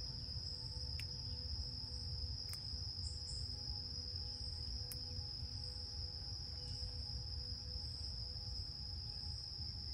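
A steady, high-pitched insect trill that holds unbroken throughout, over a low steady rumble, with a few faint clicks.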